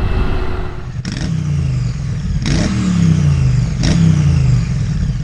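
Motorcycle engine sound: three sharp revving surges about a second and a half apart, each dropping away in pitch.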